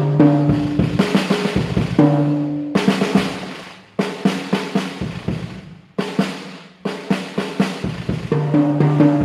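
Acoustic drum kit played with sticks: fast fills across the toms and snare, the toms ringing at a clear low pitch, with cymbal crashes about three, six and seven seconds in.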